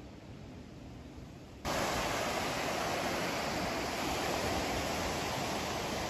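A faint low hiss, then, about a second and a half in, a sudden switch to a loud, steady rush of lake waves breaking on a gravel beach, with wind mixed in.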